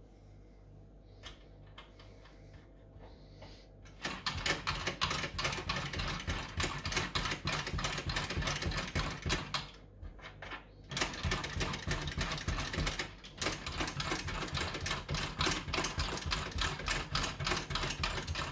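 The freshly oiled Wilesco D16el model steam engine turned over by hand while cold. Its crank, piston and flywheel make a fast, rhythmic mechanical clatter that starts about four seconds in and stops briefly twice. This is a test that the rebuilt engine runs freely before it is steamed up.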